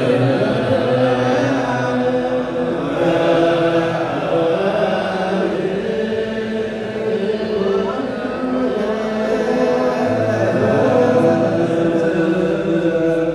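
Ethiopian Orthodox liturgical chant: several voices chanting together in long, drawn-out held notes.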